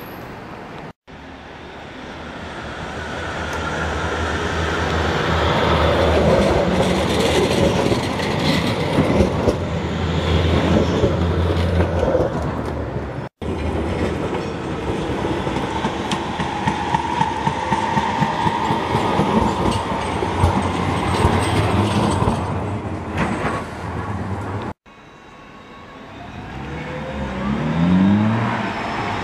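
Trams running past on street track in several short clips: wheels rumbling and clattering over the rails, with a drawn-out wheel squeal in the middle. Near the end a tram's motors rise in pitch as it pulls away.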